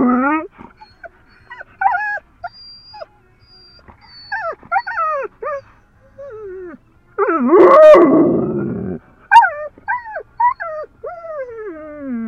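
Dog whining and yelping in excitement: a string of short high whines, a louder, longer outburst of whining about halfway through, and a long falling whine near the end.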